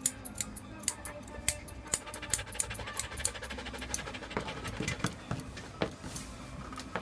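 Grooming scissors snipping through a standard poodle's curly coat: sharp, short snips at an uneven two or three a second.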